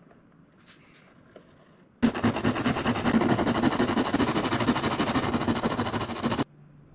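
36-grit sandpaper on a sanding block scraping back and forth in quick strokes over a wing tip's thin plywood, balsa and blue foam edge. It starts suddenly about two seconds in and stops abruptly shortly before the end.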